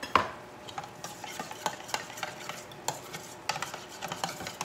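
Metal spoon stirring a thick yogurt sauce in a stainless steel mixing bowl, with irregular scrapes and clinks against the bowl, the loudest clink right at the start.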